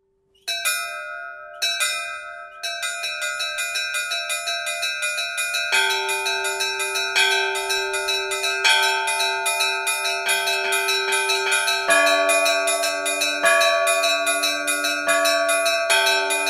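Church bells ringing: two single strikes, then a small bell struck rapidly and steadily, with larger, deeper bells joining about six seconds in and again near the twelve-second mark.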